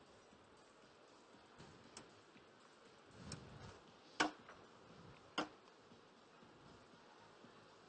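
Small ceramic espresso cups being handled and set down: four sharp, light clinks spread over a few seconds, the loudest about four seconds in, with faint rustling in between.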